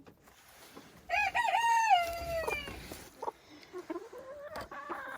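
A silkie rooster crows once, about a second in, the crow falling in pitch at its end. Softer clucking follows.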